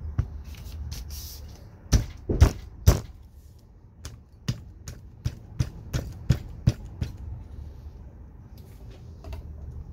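Humvee X-door window frame knocked on the workbench to seat the glass pane all the way down: three heavy knocks about two seconds in, then a run of lighter sharp taps, about two a second, for some three seconds.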